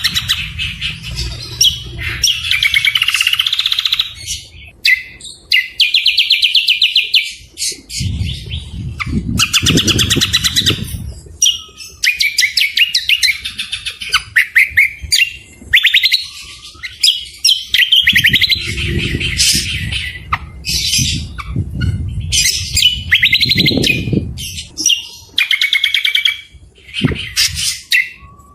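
Songbirds singing loud, rapid chirping trills and harsh, rough notes in quick phrases with short gaps: cucak kombo (greater green leafbird) mixed with other birds' harsh fill-in calls. A low rumble comes and goes underneath.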